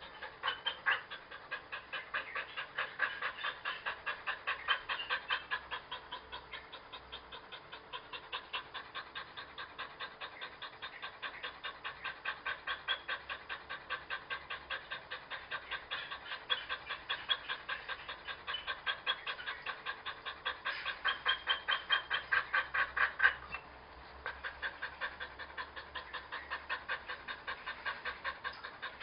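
A large dog panting rapidly, about four breaths a second. The panting breaks off briefly about three quarters of the way through, then carries on.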